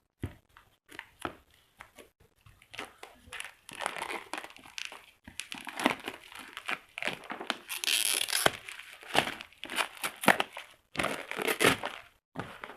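Packaging of a mobile phone box being handled and opened: irregular crinkling and crackling, with a louder tearing sound about eight seconds in.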